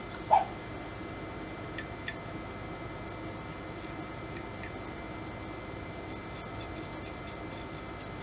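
Cotton swab wet with isopropyl alcohol scrubbing the metal contacts of a rotary encoder, a faint scratchy rubbing with a few light clicks. A short sharp sound stands out about a third of a second in, louder than the rest.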